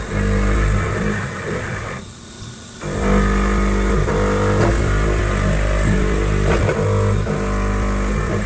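Background music with a heavy bass line and changing chords. It drops out briefly about two seconds in, then comes back.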